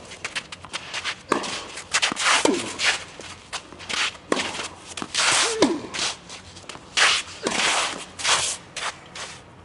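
Tennis rally in a singles match: repeated sharp racket-on-ball hits, with footsteps and shoe scuffs on the court and several short falling grunts.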